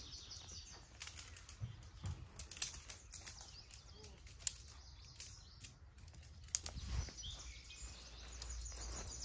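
Outdoor campsite ambience: scattered light clicks and taps over a steady low rumble, with small birds chirping now and then, most around the end.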